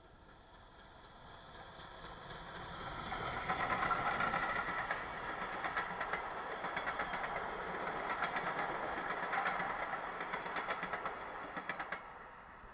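Ol49 steam locomotive hauling a passenger train passing close by. It swells from faint to loudest about four seconds in as the engine goes past, followed by the steady, rhythmic clickety-clack of the coach wheels over the rail joints, which cuts off abruptly near the end as the last coach passes.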